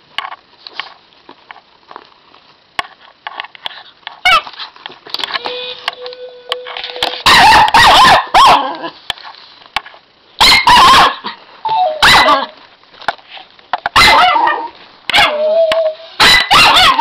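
A puppy barking in several short, loud bursts at a Mio Pup robot toy dog, which answers with electronic beeps and chirps, including one steady beep lasting about two seconds.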